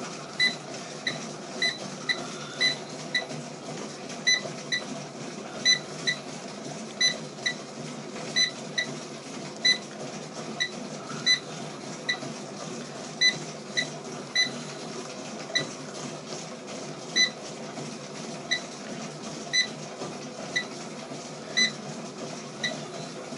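Control console of a 1993 Lifecycle 9500 exercise bike giving about thirty short, identical high beeps at irregular intervals as its keypad is pressed over and over. The keys respond only now and then, a fault the owner puts down to failing debouncing capacitors in the keypad circuit.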